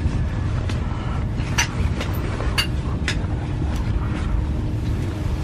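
A moving train heard from inside the carriage: a steady low rumble, with several sharp clacks from about a second and a half in.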